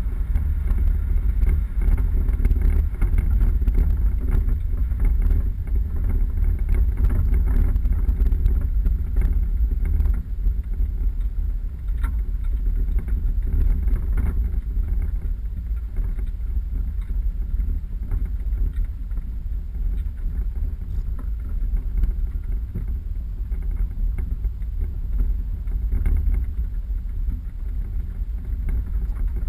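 4x4 vehicle driving off-road: a steady low rumble of engine and rough track, with wind buffeting the microphone and a few knocks.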